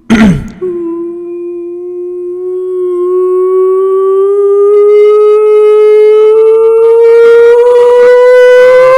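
A sharp crack, then a sustained pitched tone with overtones that rises slowly in pitch and grows louder. It is not the pure sine sweep the video promises.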